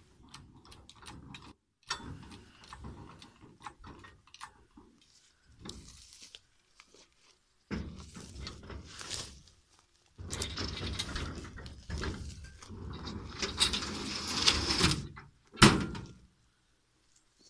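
A heavy log hanging from the chain of a hand-operated mini crane scrapes, grinds and bumps against the steel trailer as it is swung aboard, with scattered clinks of the chain. It ends in one loud knock as the log comes down on the trailer's edge.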